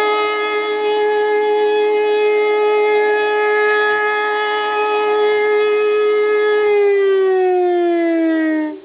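Pintsch Bamag high-performance siren sounding the fire-alarm test signal, a loud steady tone. About seven seconds in, the pitch starts to fall as the siren winds down, and the sound drops away sharply near the end.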